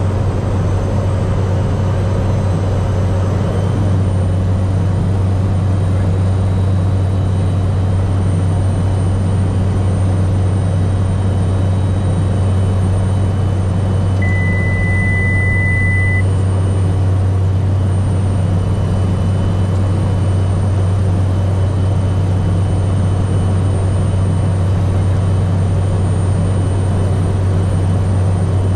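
Cessna 208 Grand Caravan's turboprop engine and propeller heard from inside the cockpit in flight: a loud, steady, deep drone. About halfway through, a steady high beep sounds for about two seconds.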